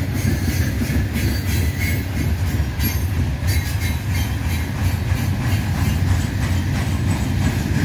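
Loaded coal hopper cars rolling past on steel rails: a steady, heavy low rumble of wheels on track, with frequent clicks and rattles from the wheels and car bodies.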